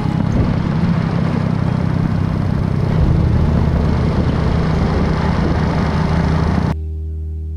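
Moped engine running with road and wind noise while riding, loud and steady. Near the end it cuts off suddenly and a steady low hum is left.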